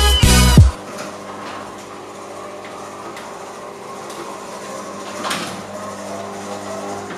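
Intro music cuts off under a second in, then an electric garage door opener runs with a steady mechanical hum as the sectional garage door closes, with a bump about five seconds in.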